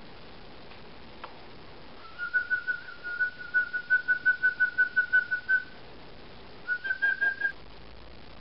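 A rapid series of short, high whistle-like chirps, about six a second, lasting a few seconds. After a brief pause comes a shorter run, a little higher in pitch.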